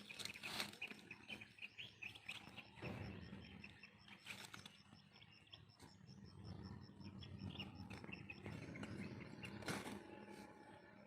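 Faint outdoor ambience with birds chirping and a fast, evenly pulsing high call that stops about eight seconds in. A few soft knocks are heard, near three, four and ten seconds.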